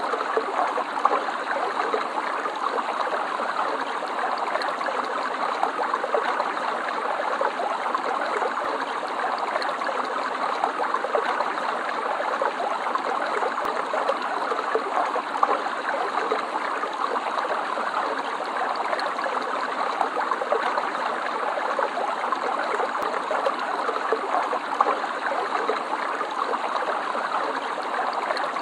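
Stream water running over stones in a steady, continuous babble.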